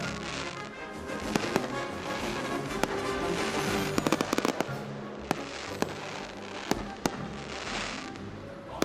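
Backyard consumer fireworks going off over music. Single sharp bangs are scattered through, with a quick rapid-fire run of reports about four seconds in.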